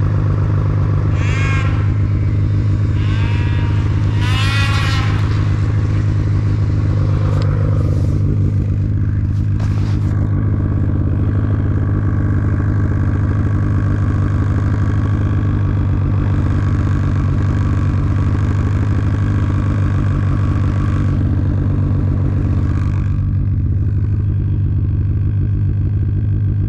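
Snowmobile engine running at a steady, loud, even pitch throughout. In the first five seconds, brief higher-pitched sounds rise and fall in pitch over it.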